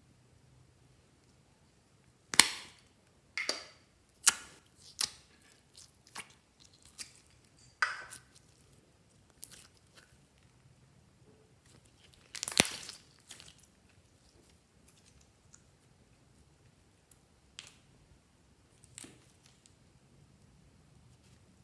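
Slime being squished and worked by hand: an irregular run of sticky pops and crackles, loudest about two and a half seconds in and again around twelve seconds in, then only a few faint ones.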